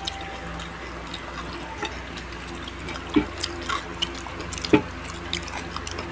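Close-up mouth sounds of people chewing food: wet chewing and smacking with scattered small clicks, two of them sharper, about three seconds and just under five seconds in, over a low steady hum.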